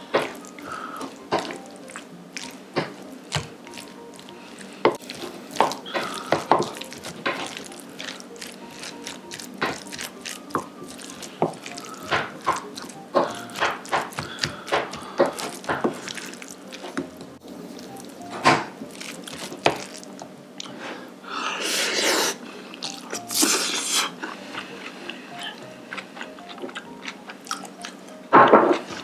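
Wooden spoon stirring black bean sauce into rice in a bowl: wet squelches and many small clicks of the spoon against the bowl, with a couple of longer, louder noisy bursts about three-quarters through.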